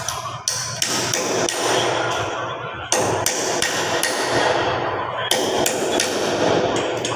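Hammering: a run of sharp, loud blows with dense noise between them, from work on a leak repair for epoxy injection waterproofing.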